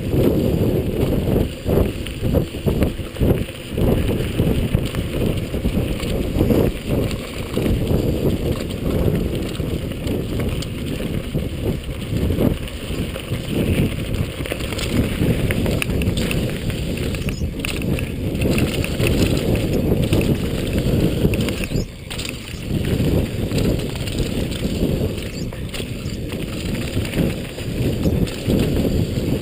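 Mountain bike descending a rough downhill trail, its frame, chain and components rattling and clattering over bumps without a break, under steady low wind rumble on the microphone.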